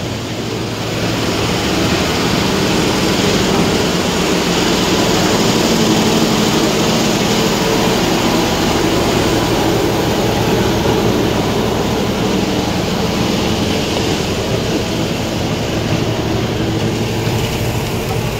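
A boat engine running steadily and loudly, with an even low drone that swells slightly about a second in and holds.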